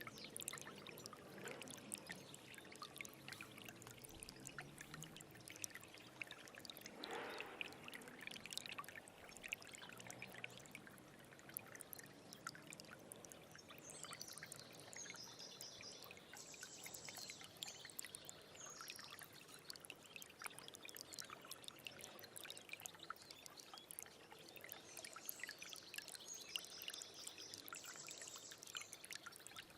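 Small stream of water trickling and splashing, with many small splashes and drips.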